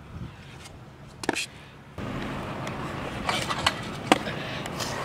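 Stunt scooter on skatepark concrete: wheels rolling with a steady noise from about two seconds in, and a few sharp clacks of the scooter hitting the ground near the end.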